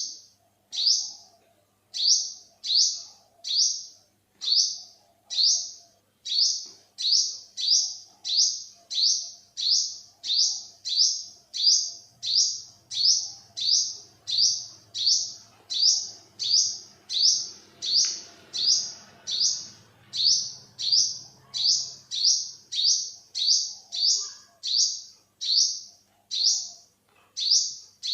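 Olive-backed sunbird calling, one short high-pitched note repeated steadily about three times every two seconds.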